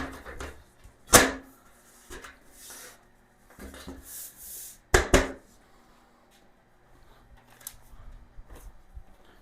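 Shelf board being worked down into a storage shelving unit's frame: two sharp knocks, about a second in and about five seconds in, with sliding rubbing between them and light taps afterwards.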